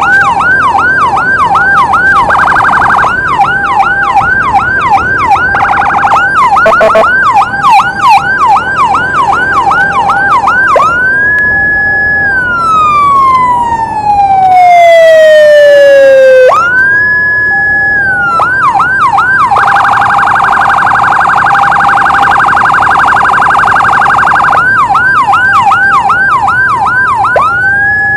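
Electronic emergency siren on an ambulance run, cycling through its tones: a rapid yelp of about three or four sweeps a second, twice broken briefly by a fast buzzing warble. About eleven seconds in it climbs, holds, then slides slowly down in one long falling wail before it climbs again and returns to the yelp. A long fast warble runs from about twenty to twenty-four seconds, then the yelp resumes.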